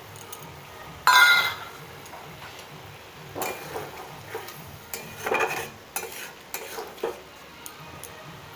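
A metal spatula stirring and scraping a watery curry in a steel kadai, in repeated strokes, with a louder ringing clink of metal about a second in.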